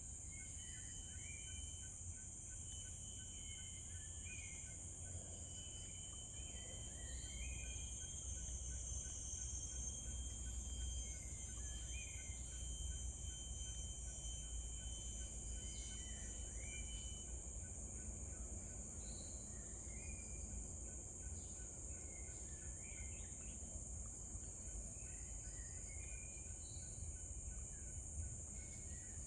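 Steady high-pitched insect chorus, with short chirping bird calls every few seconds and a low rumble underneath.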